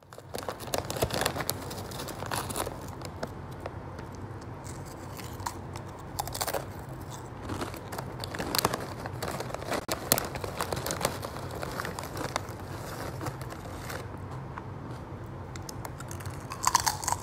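Foil potato chip bag (Lay's Wavy) crinkling and rustling as long-nailed fingers rummage inside it, with irregular crackles and crunching of the chips.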